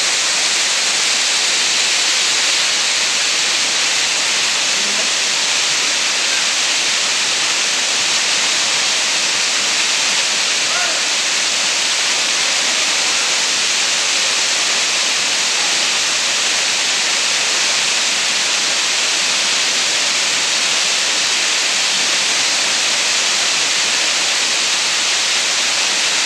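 Waterfall: water cascading over stepped rock ledges, making a steady, loud, even rush.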